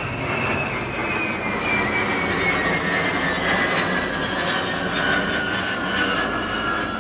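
Boeing B-52 Stratofortress bomber's eight jet engines passing overhead: a steady loud rush of engine noise with a high whine gliding slowly down in pitch.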